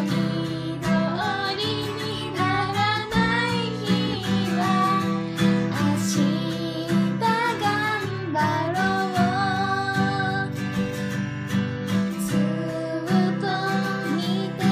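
Acoustic guitar strummed as accompaniment while a woman sings the melody over it, the guitar chords steady underneath a gliding, wavering vocal line.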